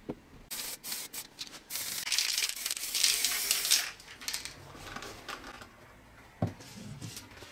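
Clear plastic sheeting crinkling and rustling as it is handled, with irregular crackles and then a dense stretch of rustling in the middle. A single knock comes about six and a half seconds in.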